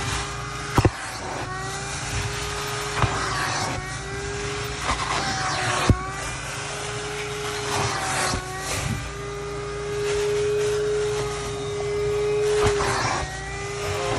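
Wet/dry shop vacuum running, its hose sucking water out of a flood-soaked car floor carpet. The motor whine shifts up and down in pitch as the nozzle is worked over the carpet, with a few sharp clicks along the way.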